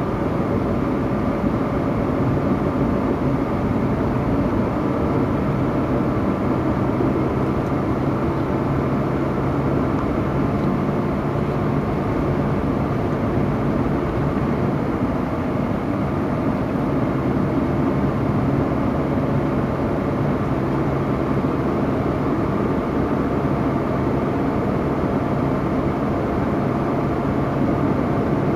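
Car driving at steady speed, heard from inside the cabin: engine hum and tyre-on-road noise, even throughout with no sudden changes.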